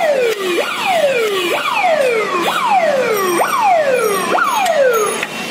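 Electronic siren whooping nearby, each cycle a quick rise followed by a long falling glide, repeating about once a second, and it stops about five seconds in.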